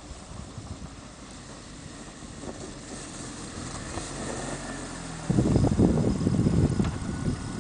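Small Fiat Cinquecento hatchback's engine running as the car drives over snow toward the microphone, slowly growing louder. About five seconds in, a much louder rough low rumble takes over close to the microphone.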